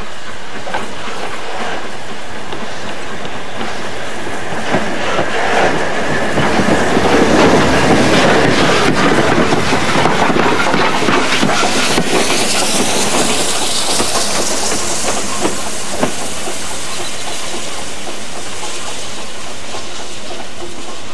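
Running noise of a train heard at an open carriage window, wheels clicking over the rail joints. It grows louder for several seconds in the middle as a locomotive passes close alongside on the next track, followed by a high hiss that rises and falls.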